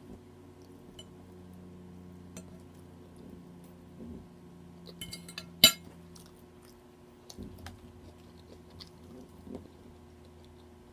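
Eating sounds: light clicks and clinks of a fork against a dish, with one sharp clink a little past halfway, over a faint steady hum.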